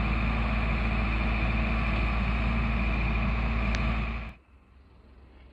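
Forestry forwarder's diesel engine running steadily under load as its crane grapple lifts logs, then cutting off sharply about four seconds in.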